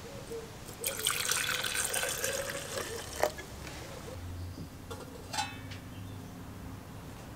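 Old gasoline poured from above into a clear plastic cup over a spark plug, a splashing hiss lasting about two seconds. A sharp click follows about three seconds in, and a short rattle comes near the middle.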